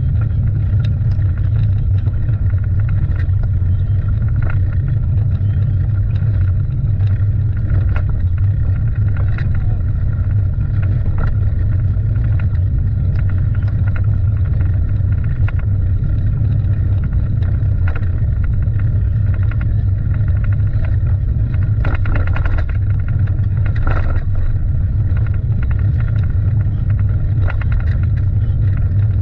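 Steady low rumble with a hiss above it, and a few brief knocks near the end.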